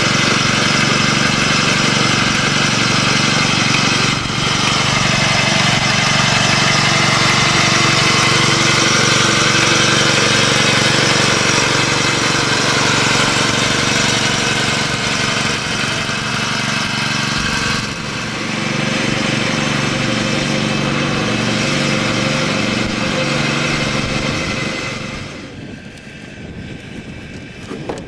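Small engine of a Barber beach-cleaning machine running steadily under a broad mechanical clatter as it works across the sand; the sound falls away sharply near the end.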